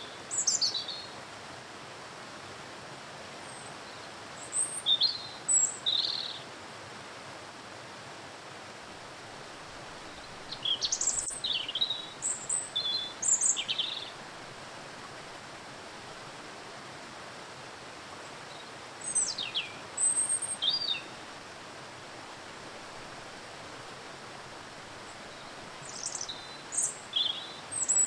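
Steady rush of a waterfall with songbirds chirping over it in short bursts of high, quick notes that come back about every six to eight seconds.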